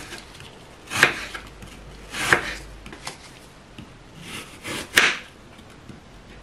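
Knife slicing a peeled apple into thin slices on a wooden cutting board: five separate cuts, each ending on the board, the last three close together about four to five seconds in.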